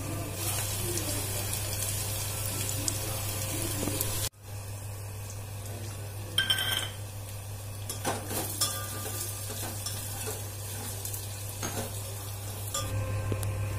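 Chopped vegetables sizzling in a small steel pot on a gas stove while a slotted steel spoon stirs them, clinking against the pot a few times. The sound drops out briefly about four seconds in.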